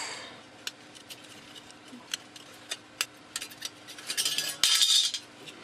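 Small metal clicks and scraping as a metal RF shielding can is worked off a circuit board, with a louder burst of scraping and rattling about four seconds in.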